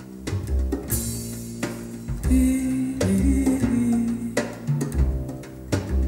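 Music played through JBL Everest DD67000 loudspeakers: a track with deep bass notes, sustained pitched tones and a few sharp drum hits.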